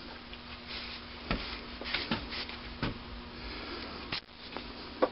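A handful of light metallic clicks and knocks as the lapped valve and the hand-cranked valve lapping tool are lifted and handled on the engine cylinder head, over a faint steady hum.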